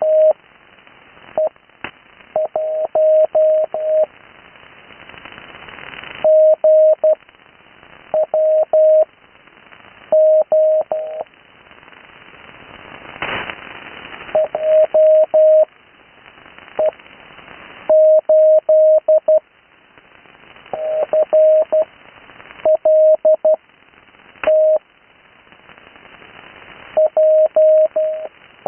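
Morse code (CW) on the 80-metre amateur band: a single steady-pitched tone keyed on and off in groups of dots and dashes, sent slowly with clear gaps between characters. Under it runs a hiss of band noise, with a few sharp static crackles.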